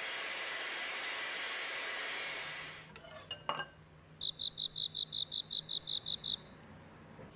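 Electric hand mixer whirring as its beaters whip warm eggs and sugar for a sponge cake, stopping about two and a half seconds in. A couple of light clinks follow, then a quick run of about a dozen short high beeps.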